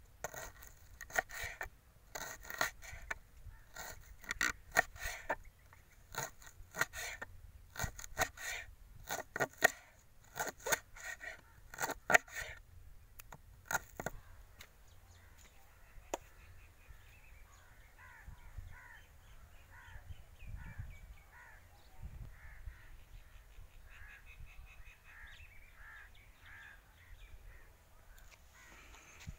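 A knife slicing a fresh green garlic bulb on a wooden board makes a run of sharp, irregular cutting knocks through about the first half. After that, fainter repeated bird calls take over.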